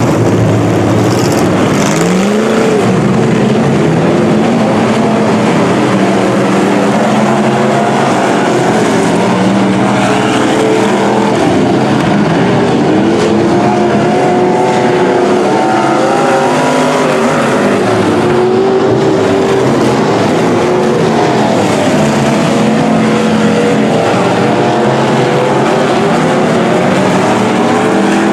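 A pack of pro stock dirt-track cars racing, several engines at once revving up and falling back as the cars accelerate and lift through the figure-8. It is loud and continuous, with overlapping engine notes that keep climbing and dropping in pitch.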